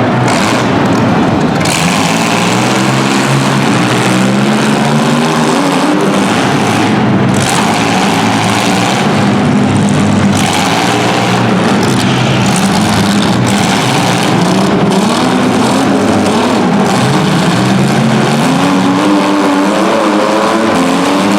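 Several compact car engines revving hard at once, their pitches repeatedly rising and falling and overlapping in a continuous loud din.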